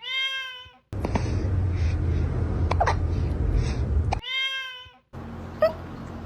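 Cat meowing twice, two identical calls each under a second long, between short sharp cat hiccups. A loud noisy background runs under the middle part.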